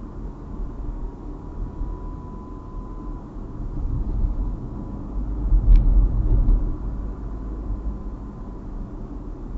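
Car interior driving noise picked up by a dash cam's built-in microphone: a steady low rumble of road and engine noise that swells for a couple of seconds past the middle, with a single sharp click about six seconds in.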